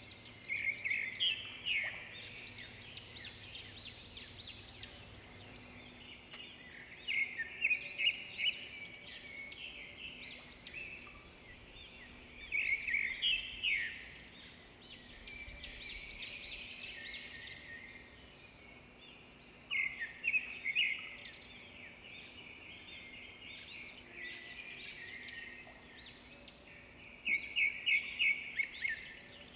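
Small birds chirping in quick clusters of rapid high chirps, about five bursts spread several seconds apart, over a faint steady low hum.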